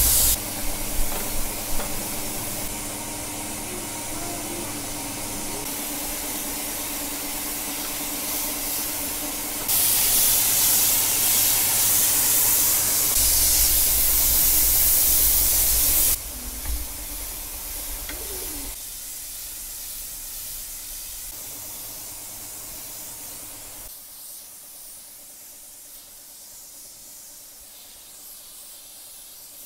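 Steady hissing spray, loudest and brightest for several seconds in the middle, with abrupt drops in level after that.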